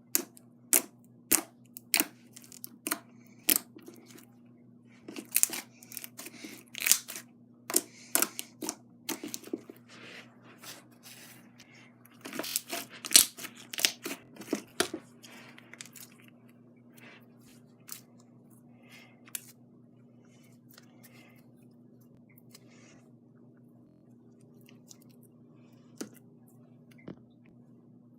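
Glossy slime being squished and stretched by hand, giving sharp clicking pops from trapped air. The clicks come thick and fast for the first half, then only now and then.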